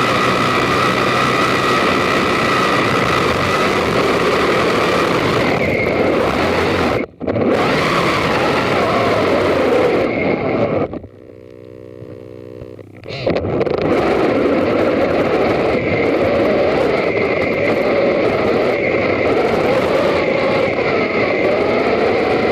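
Electric FPV RC buggy driving over rough ground: a steady motor whine over a loud rushing noise from the tyres and chassis. It cuts out briefly about seven seconds in, and drops to a quieter buzzing for about two seconds around the middle.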